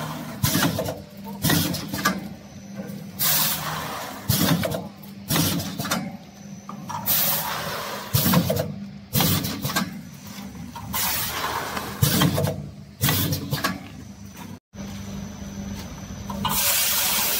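Vertical form-fill-seal packing machine running while it bags grain: a steady motor hum, with a sharp hiss of compressed air every second or two as its pneumatic sealing jaws work.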